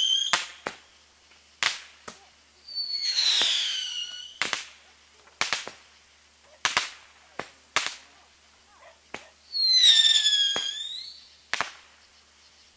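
Consumer fireworks going off: about eight sharp single bangs spaced a second or so apart, and two long shrill whistles falling in pitch, one a few seconds in and one near the end.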